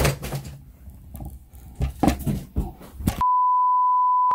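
Rustling and knocks of clothing brushing against the camera microphone, then, a little after three seconds in, a steady 1 kHz test-tone beep that goes with a colour-bar test pattern.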